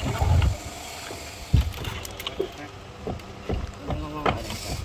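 Irregular knocks and thuds from work on a wooden fishing boat's fittings, with a sharp bang about one and a half seconds in, and voices in the background.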